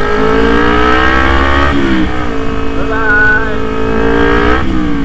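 Kawasaki Z250 motorcycle engine pulling through the gears. The revs climb, drop at an upshift a little under two seconds in, climb again and drop at another shift near the end. A brief high tone sounds about three seconds in.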